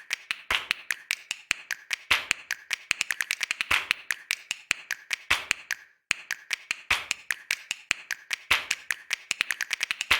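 Typing sound effect: rapid sharp clicks, several a second, with a heavier click about every one and a half seconds. It breaks off about six seconds in and starts again at once.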